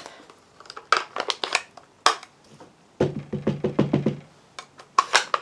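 Clear acrylic stamp block with a rubber stamp tapped repeatedly onto an ink pad to re-ink it: runs of quick, light clacks, the longest about three seconds in.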